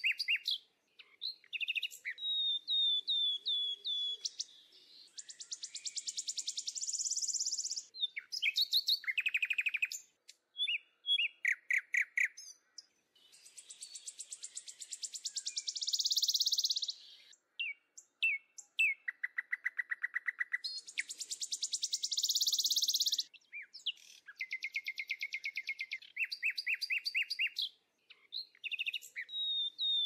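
Songbirds calling: runs of rapid repeated chirps and sharp hooked notes, alternating with fast buzzy trills several seconds long, with short breaks between them.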